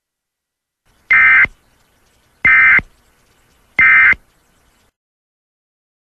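Emergency Alert System end-of-message data bursts: three identical short digital chirps, each about a third of a second long and just over a second apart, signalling the end of the alert.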